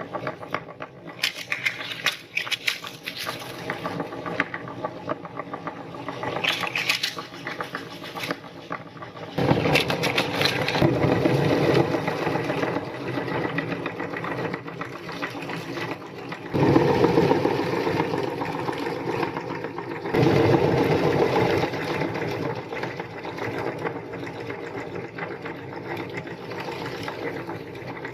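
Electric meat grinder running steadily, with three louder, grittier spells that begin suddenly about a third of the way in, a little past halfway and about three quarters of the way in, as something is ground through it.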